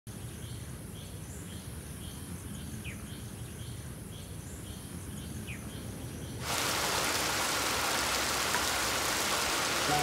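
Tropical forest ambience: a low rumble with faint, regular chirping about twice a second and two short bird whistles. About six and a half seconds in, heavy rain starts suddenly, a steady hiss of rain on foliage that is louder than the forest sounds before it.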